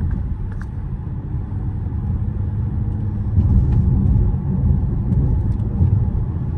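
Mercedes-AMG GLE 53 under way, heard from inside the cabin: a steady low rumble of its turbocharged inline-six and the road, growing a little louder about three seconds in.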